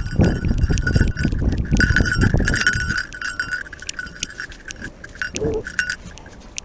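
Metal fittings on a running Doberman's collar and camera harness clinking and jingling in a quick, uneven rhythm, with a rumble of movement noise over the first three seconds that then fades.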